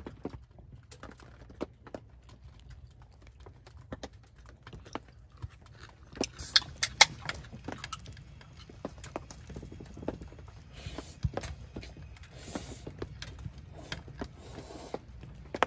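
Light clicks and clinks of utensils against dishes during a meal, scattered and irregular, with a louder cluster of clicks about halfway through and a few brief rustles, over a steady low hum.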